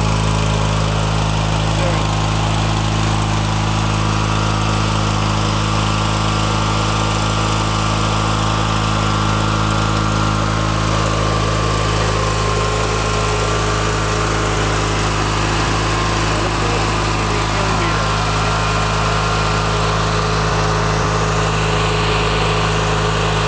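Craftsman riding mower's 19.5 HP Briggs & Stratton Turbo Cooled engine running steadily, back in running order after a bad solenoid and a faulty kill-switch wire were fixed.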